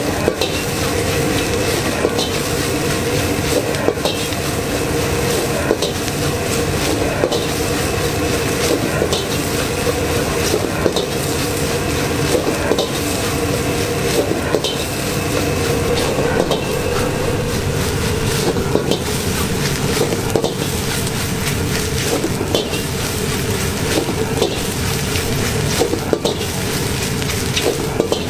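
Fried rice sizzling in a wok over a gas flame while a metal ladle stirs it, scraping and clacking against the wok many times at an uneven pace, over a steady rushing noise.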